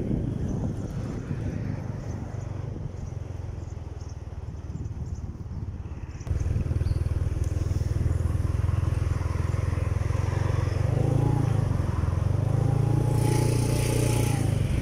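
Motorcycle engine running under way, with wind noise on the microphone. About six seconds in, the engine sound suddenly jumps louder and holds a steady low drone.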